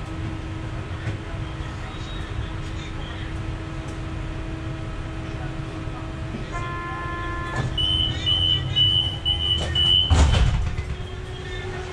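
Low-floor tram standing at a stop with a steady hum from its equipment. A short chime sounds, then a rapid series of high warning beeps, about three a second, signals the doors are closing. The doors then shut with a thump about ten seconds in, just before the tram moves off.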